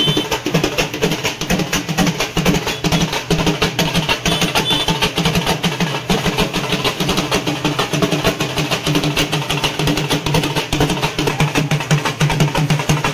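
Fast, unbroken drumming, loud and steady throughout.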